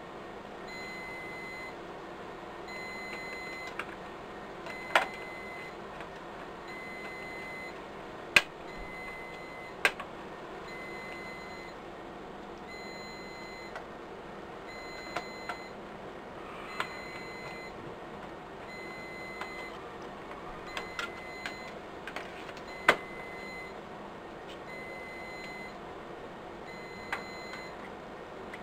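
Scattered sharp clicks and light knocks as the metal case of a UPS battery pack is screwed back together with Torx screws. Behind them is a steady hum with a faint high tone that pulses on and off evenly.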